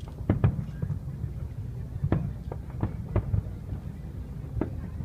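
Fireworks going off: an irregular series of sharp bangs and pops, two close together near the start and more spread through the rest, over a steady low rumble.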